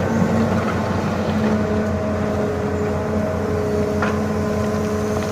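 Excavator's diesel engine running steadily, with one short sharp knock about four seconds in.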